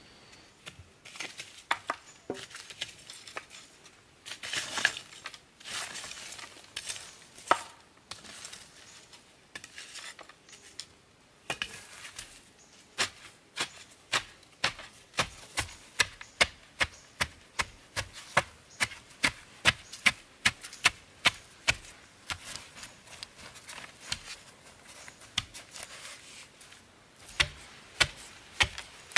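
A wooden stick tamping loose soil around the base of a bamboo post, packing the earth to set the post. Scattered knocks and scraping at first, then from about twelve seconds in a steady run of sharp knocks, about two a second.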